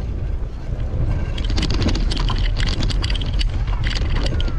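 Wind buffeting the microphone of a bicycle-mounted action camera. From about a second in, the bicycle rattles with dense clicks as it rolls over rough cobblestones.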